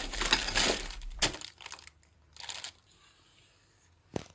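Clear plastic bag crinkling as it is handled, loudest in the first second and a half, with a short rustle about two and a half seconds in and a single sharp click near the end.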